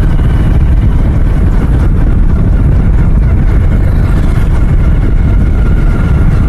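Motorcycle riding along at a steady, gentle pace, its engine running under a loud, steady low rumble of wind and road noise.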